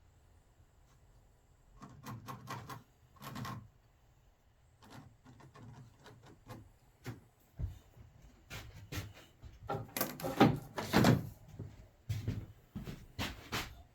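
Irregular wooden knocks, clunks and short scrapes as boards and a track-saw jig are handled and set down, with no saw running; the loudest cluster comes about ten to eleven seconds in.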